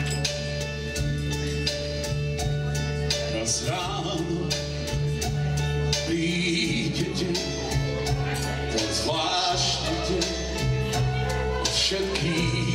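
A man singing into a microphone over a recorded backing track with a steady beat and bass, played through PA speakers.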